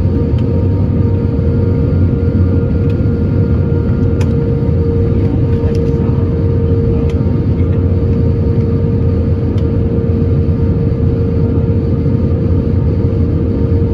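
Airbus A320 cabin noise by the wing in flight: the steady rumble of the jet engines and rushing air, with a steady mid-pitched hum.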